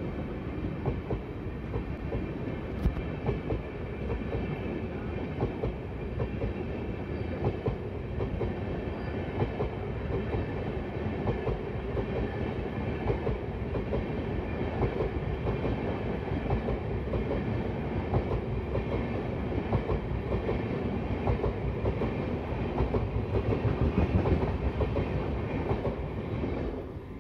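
LHB passenger coaches passing close by at speed: a steady rumble of steel wheels on rail with rapid clicking over rail joints, loudest near the end as the last coach goes by.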